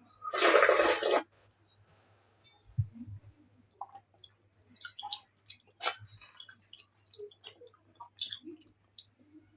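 Close-up chewing and mouth sounds of someone eating taro root curry with rice, with scattered small clicks. There is a loud rush of noise lasting about a second near the start.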